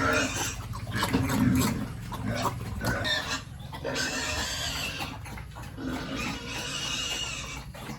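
Pigs grunting and oinking, several animals at once in an irregular, overlapping run.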